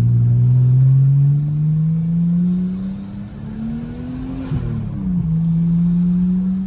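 Nissan Skyline R34 engine pulling up through the revs under acceleration. A gear change about five seconds in drops the pitch, then it climbs again.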